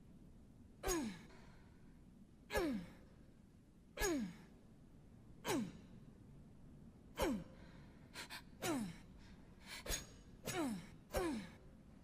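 Survival knife sound effect: a series of sharp strikes, each followed by a short tone that falls in pitch. They come about every one and a half seconds at first, then faster and with a few smaller clicks near the end.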